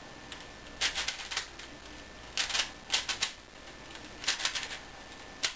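V-Cube puzzle cube being twisted: plastic layers clicking and snapping into place in about four quick bursts of turns.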